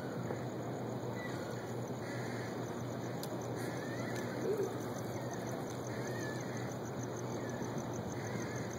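Steady harbour ambience, a low hum under an even hiss, with faint short chirps every second or so.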